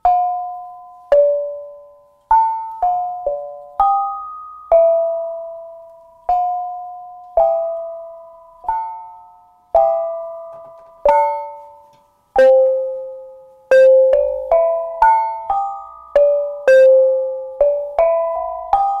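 Bonang, a set of knobbed metal kettle gongs, struck one at a time with cord-wrapped mallets to play a melody; each note rings clearly and fades away. The strokes come about once a second at first, then faster and overlapping from about two-thirds of the way through.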